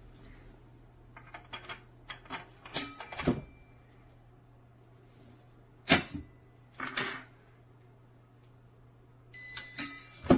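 Irregular sharp metallic clicks and knocks, as of a small metal pistol safe being handled: a cluster of clicks, a single loud click, then a few more near the end with a brief ringing tone. A steady low hum runs underneath.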